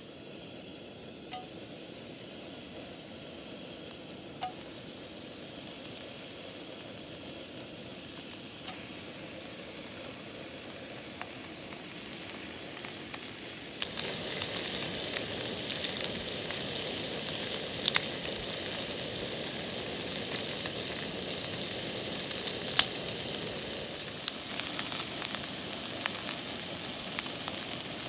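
Frying sizzle: a steady crackling hiss with scattered sharp pops. It starts about a second in and grows louder midway, and again near the end.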